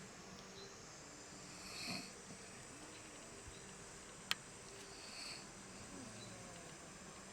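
Soft snoring of someone sleeping, a noisy breath about every three and a half seconds, twice here. A single sharp click about four seconds in.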